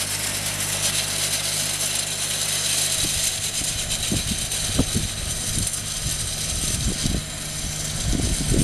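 Bobcat compact tractor's diesel engine running steadily as it drives off along a gravel road. About three seconds in, the steady engine tone gives way to uneven low rumbles as the tractor pulls away.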